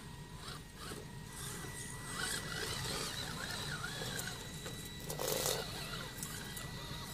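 Electric RC scale crawler trucks creeping over a dirt course, their motors giving a steady high whine. There is a brief scraping rustle about five seconds in.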